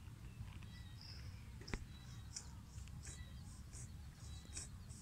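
Faint outdoor ambience: a steady low rumble, with short high chirps from a small bird or insect repeating about three times a second from halfway on. A single sharp click near the middle.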